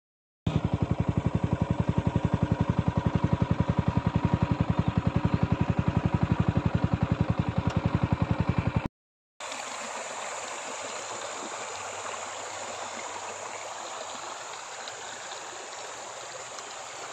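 A motorcycle engine running with a steady, fast beat, which cuts off suddenly after about eight seconds. After a short gap comes the steady, quieter rush of a shallow river flowing over rocks.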